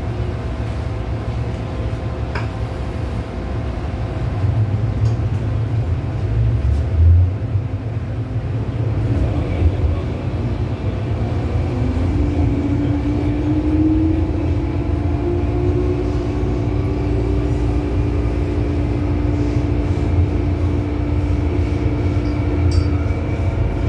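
MTR M-Train electric multiple unit heard from inside the car: a steady low rumble from the running gear. About ten seconds in, a motor whine joins it and rises in pitch as the train picks up speed, then holds steady.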